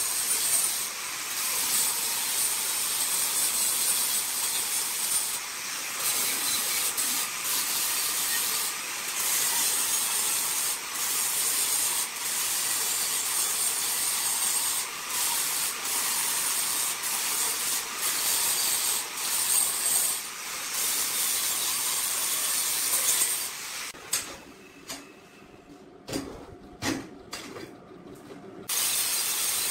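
Electric angle grinder with a flap disc grinding the joints of curved square steel tubing: a steady, high-pitched whine and hiss with brief dips as the disc bites and lifts. It stops about 24 seconds in, giving way to a few clanks as the steel tubes are moved on the steel table, and starts grinding again near the end.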